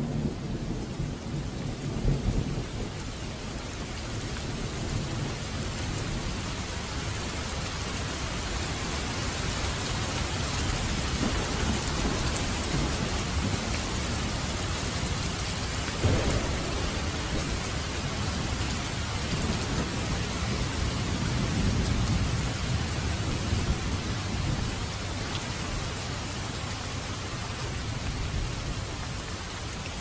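Steady rain falling, with low rumbles of thunder swelling about two seconds in and again around two-thirds of the way through, and one brief sharp crack near the middle.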